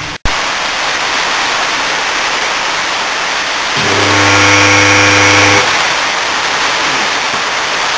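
The stripped Danfoss Maneurop MTZ100 compressor motor is switched on and gives a loud, steady electrical hum for about two seconds without turning: the motor is stalled, lacking the torque to start. A steady hiss of rain runs underneath.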